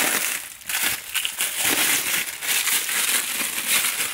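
Clear plastic packaging crinkling and rustling as it is handled and pulled open, with a short lull about half a second in.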